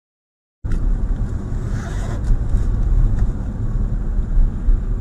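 Dead silence, then about half a second in, the steady low rumble of a moving car starts abruptly: engine and road noise.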